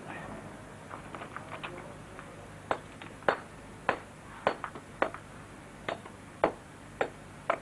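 Hammer striking a stone block to dress and split it. Sharp clinking blows fall about every half-second, starting about three seconds in, with lighter taps before them.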